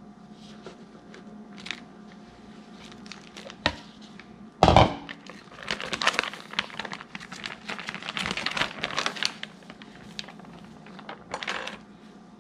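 Plastic sheet crinkling and rustling as pastry dough is handled on a counter, with scattered light clicks and one sharp thump about four and a half seconds in.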